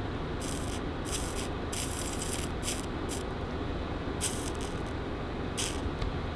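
Soldering iron tinning fluxed ribbon-cable wire ends, giving short bursts of sizzling hiss, about seven over a few seconds.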